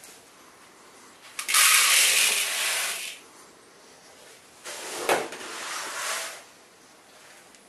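Base malt grain poured from a plastic scoop into a plastic mixing bowl on a kitchen scale: a loud rushing pour about one and a half seconds in, lasting about a second and a half. A second, quieter pour follows about five seconds in, with a sharp knock at its start.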